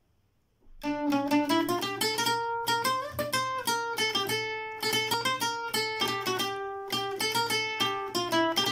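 Newly finished handmade requinto with a Canadian pine top, played as a quick melody of plucked notes that starts a little under a second in.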